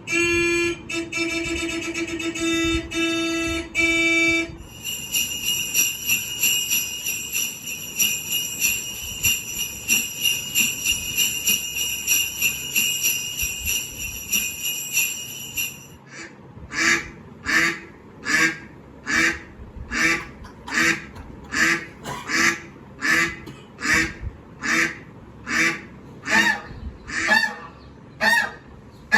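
A string of sound effects played for the dogs. First come short repeated pitched notes for a few seconds. Then a steady high ringing lasts about eleven seconds, and near the middle it gives way to a regular run of honks, about one a second.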